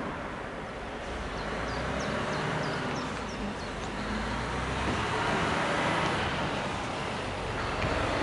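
Steady distant outdoor rumble and hiss, with a quick run of short high chirps about two to three seconds in.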